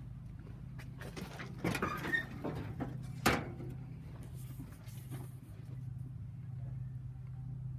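Swapped-in engine of a 1937 Plymouth idling steadily with a low hum. A few knocks and some clatter come about two seconds in, then a single sharp knock a little after three seconds.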